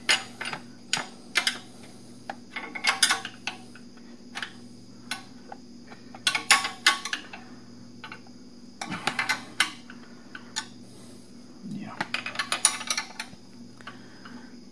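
Socket wrench and extension clicking and clinking against metal in short bursts while a bolt on a motorcycle engine guard is tightened by hand.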